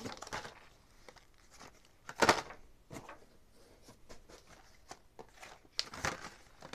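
Plastic-and-card blister packs of wiper blades being handled and set down: scattered light clicks and rustles, with two louder rustling clatters about two seconds in and again about six seconds in.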